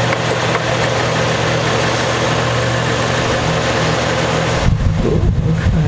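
Steady background hum and hiss. About four and a half seconds in, an irregular low rumbling joins it.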